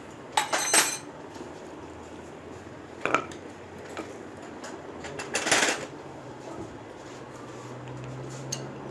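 Metal-on-metal clinks of a spanner and motorcycle front-shock parts being handled, in three short clusters: about half a second in, at about three seconds, and around five and a half seconds.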